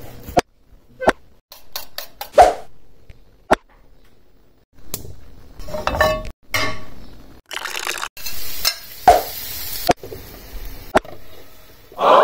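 Kitchen sounds in quick succession, broken by abrupt cuts: a knife chopping on a wooden cutting board, metal utensils clinking against a frying pan, and food sizzling in the pan.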